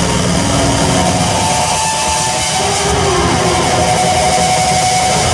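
Live electronic noise music: a dense, loud wash with a rumbling low end, over which a few held tones drift and slide in pitch.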